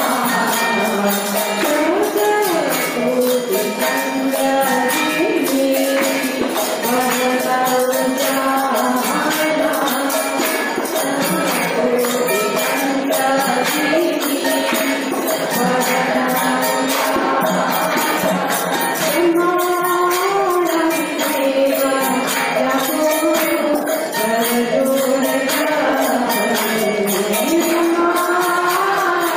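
A woman singing a Hindu aarti hymn in a flowing, melodic line, accompanied by jingling hand percussion that keeps a steady beat.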